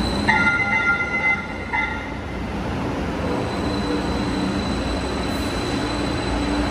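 Light rail train sounding its horn, a long blast then a short one, then rolling on with a steady hum and a faint high wheel squeal.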